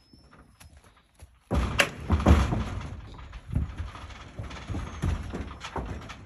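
Shod hooves of a Tennessee Walking Horse mare stepping onto and across the floor of a metal stock trailer as she loads, in irregular knocks and thuds with a light rattle of the trailer. They start about a second and a half in.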